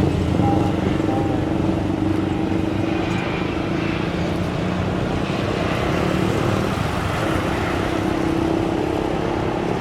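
Steady engine rumble with a low, even hum over a continuous noisy background.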